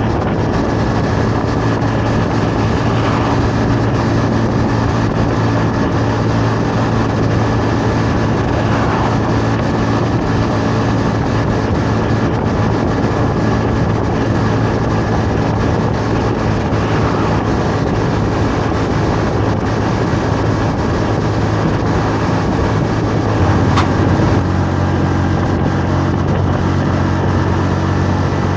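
Honda Navi 110's small single-cylinder four-stroke engine running steadily at cruising speed, with wind rushing over the microphone. About three-quarters of the way through there is a short click and the engine note steps a little lower.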